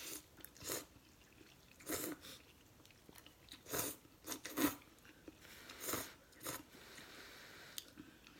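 Close-miked eating of hot pork-flavour Mama instant noodles: about seven short, sharp slurps and mouth sounds, with chewing in between.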